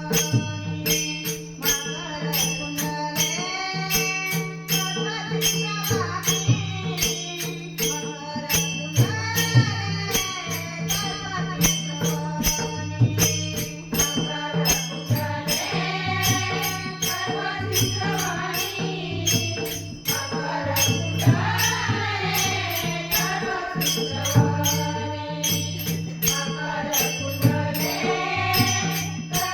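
Marathi devotional bhajan: a woman sings a winding melody over a steady held drone, with mridang drum strokes underneath and a quick jingling metal percussion beat.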